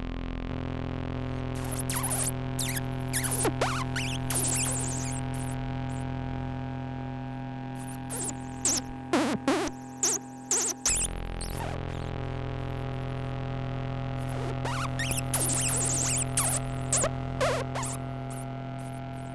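Buchla and Eurorack modular synthesizers playing an ambient soundscape: a steady drone of many held tones over a low bass, with bunches of short, quick sweeping chirps and blips coming in three times, about two, eight and fifteen seconds in. The bass under the drone shifts about eleven seconds in.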